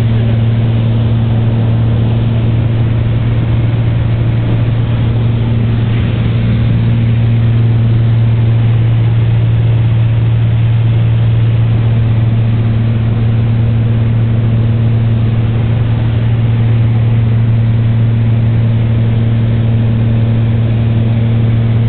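Beechcraft F33A Bonanza's six-cylinder piston engine and propeller droning steadily at constant power, heard loud inside the cabin.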